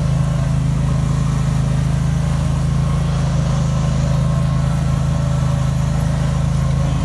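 Riding lawn mower engine running steadily at an even speed, a constant low hum.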